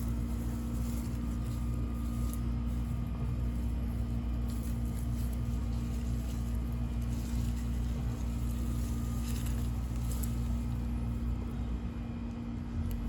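A steady, low machine hum with a constant pitch, with a few brief scraping or rustling sounds over it.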